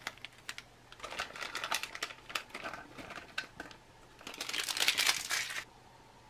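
Plastic snack pouch crinkling as dried cranberries are shaken out of it onto a stainless steel tray, with a denser burst of rustling from about four to five and a half seconds in.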